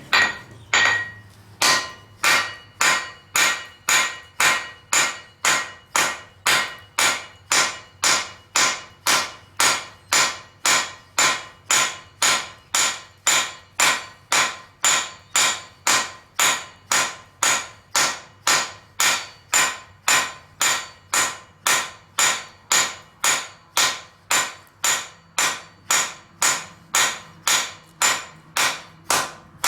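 Hammer striking steel on an anvil in a steady rhythm of about two blows a second, each blow ringing.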